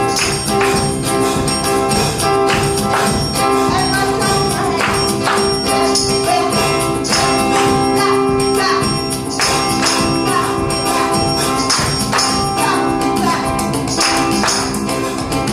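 Live gospel praise-and-worship music with no singing: the band holds steady sustained chords over a regular percussion beat.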